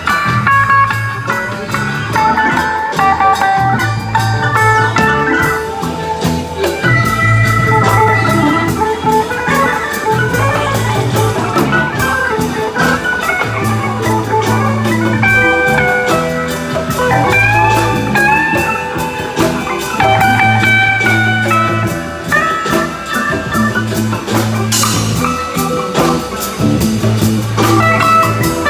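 Live band playing an instrumental blues jam, with a lead guitar line, some of its notes bent, over a repeating bass line and drums. A cymbal crash comes near the end.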